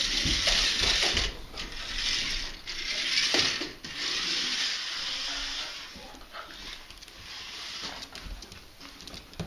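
Toy mini monster truck's small motor and gears whirring in spurts, with short breaks about one and a half and four seconds in, then quieter after about six seconds.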